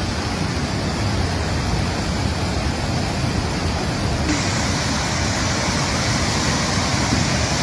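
Steady rushing of fast-moving, swollen floodwater, a dense, even noise, which turns brighter and hissier about four seconds in.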